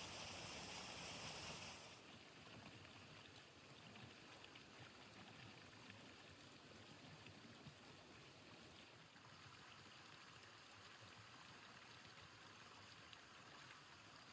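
Near silence: a faint steady hiss, louder and brighter for the first two seconds before it drops off suddenly, with a few tiny ticks.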